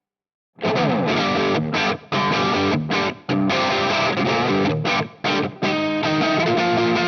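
PRS SE CE 24 electric guitar played through heavy distortion: a riff starts about half a second in, broken by several short stops, with some bent notes.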